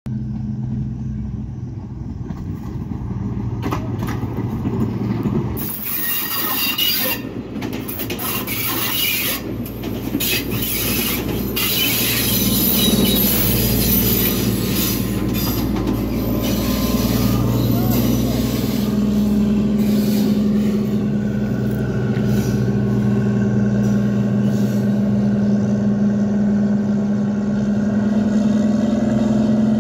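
Diesel locomotive running close by, a steady low engine drone, with a stretch of clanking and knocking from the train rolling past.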